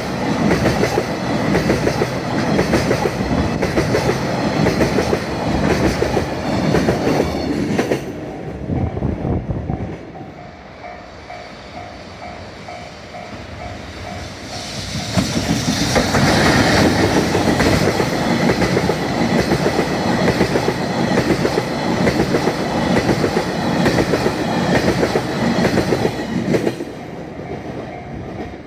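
Freight train passing close by a level crossing, wheels clattering over the rail joints. The noise eases off about a third of the way in, letting the crossing's warning bell come through, then a second loud passage of rolling wagons begins about halfway through and dies down near the end.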